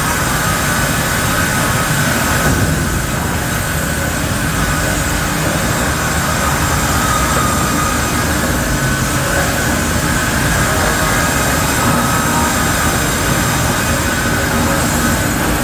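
Akkuslar 450 double slab saw with horizontal circular saws running steadily: a continuous loud machine din with a faint steady whine.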